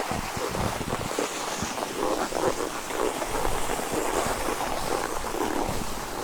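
Skis sliding over packed snow while towed up a T-bar lift: a continuous rough swish with many small crackles and scrapes.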